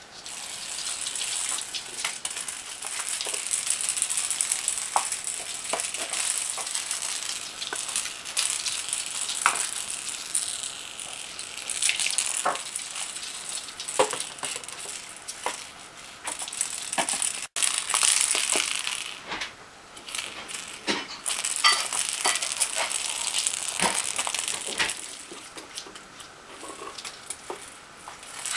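A ferret batting and chasing a small toy ball across carpet: a busy, continuous rattling with many sharp clicks and taps.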